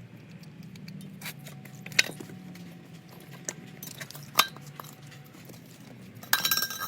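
Sharp metallic clicks and clinks, a few scattered through and a jangling run near the end, over a low steady hum.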